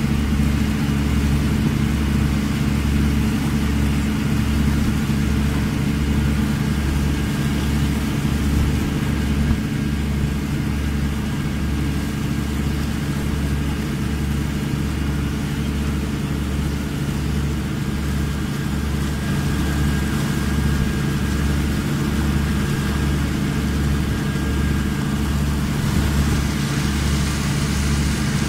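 A boat's engine running steadily under way, a constant low drone with a regular low pulse.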